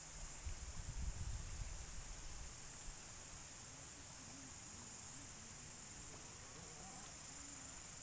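Shih Tzu giving faint, wavering snorting grunts while lying in its dirt hole, mostly in the second half, over a steady high insect drone. A low rumble dominates the first two seconds.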